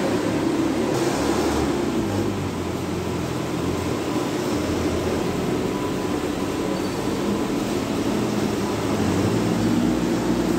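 Forklift and flatbed-truck engines running, a steady low mechanical hum with small shifts in pitch.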